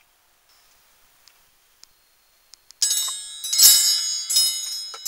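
Chimes ringing: a cluster of high, bell-like tones struck several times, starting suddenly about three seconds in after near silence.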